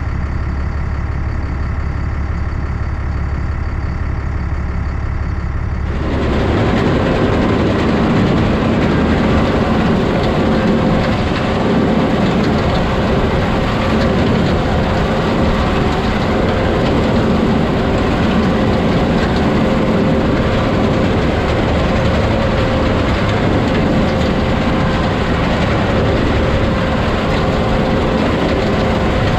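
Heavy vehicle engine running steadily. About six seconds in, the sound cuts abruptly to a louder, fuller machine noise with a steady hum that holds to the end.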